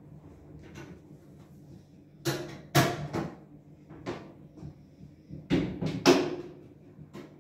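A series of sharp knocks and bangs from a small top-loading washing machine as laundry is put into it and its lid is handled and shut. The loudest come about three seconds and about six seconds in.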